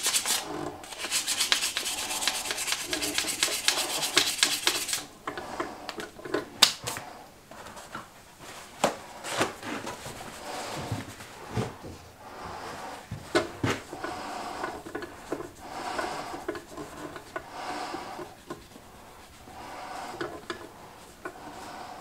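Hands working small parts at a workbench: about five seconds of steady scraping and rubbing, then scattered light clicks and knocks of small hard pieces being handled and set down.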